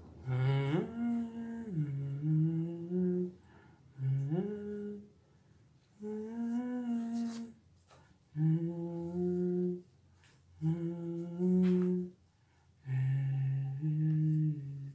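A man humming a wordless tune in about six short phrases of held, gliding notes, with brief pauses between them.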